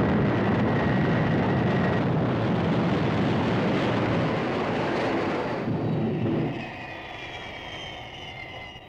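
Thunderbird 2's vertical landing jets, a sound effect: a loud, steady jet rush during touchdown that drops off about six seconds in. The engines then wind down with a falling whine.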